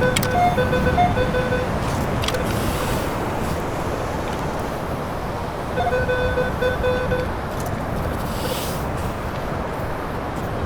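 Metal detector giving short pulsed beeps of one steady pitch, in two runs: one near the start and another about six seconds in. Under them is a steady rush of beach wind and surf.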